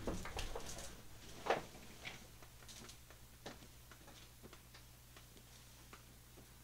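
Faint room tone: scattered light clicks and small knocks over a steady low hum, with a slightly louder knock about a second and a half in.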